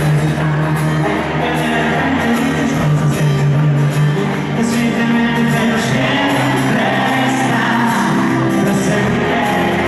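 Live pop band and singer performing a romantic pop song in a large concert hall.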